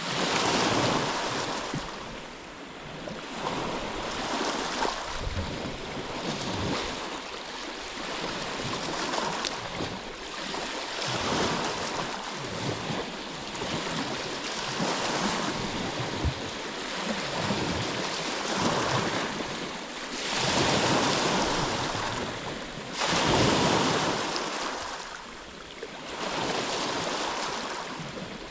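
Ocean waves breaking and washing in, a rushing noise that swells and falls every few seconds, the strongest surges coming about two-thirds of the way through.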